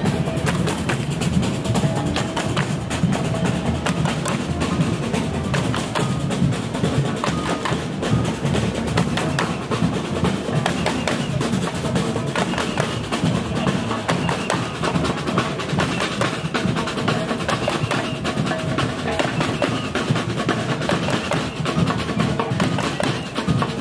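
Street carnival percussion band playing, a dense continuous drumming rhythm from marching drums.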